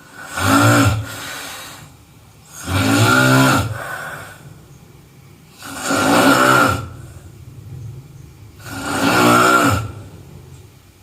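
A person snoring: four loud snores about three seconds apart, each trailing off into a quieter breath.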